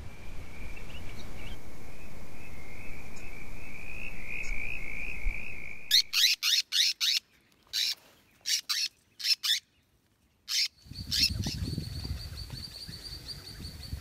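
Swift parrots calling. A fast high trill runs for about six seconds, followed by a string of short, sharp calls with silent gaps between them, and a higher, thinner trill near the end.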